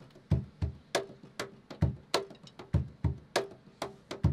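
Cajón played with bare hands, a steady groove of deep bass thumps alternating with sharp slaps, about three strokes a second.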